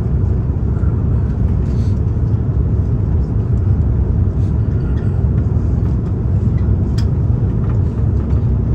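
Steady low roar of an Airbus A350-900's Rolls-Royce Trent XWB engines and rushing air, heard inside the passenger cabin as the jet comes in to land. A light click about seven seconds in.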